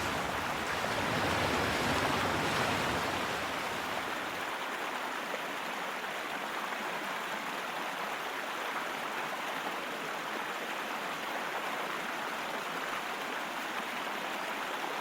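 Ocean waves on a shore: a wave's wash swells and fades over the first few seconds, then settles into a steady hiss of water with little rumble.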